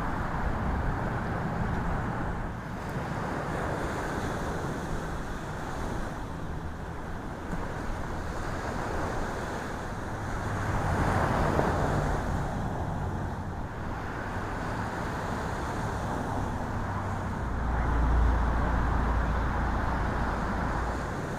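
Muffled rush and wash of water heard through an underwater fishing camera's housing, a steady noise that swells about halfway through and gains a deeper rumble near the end.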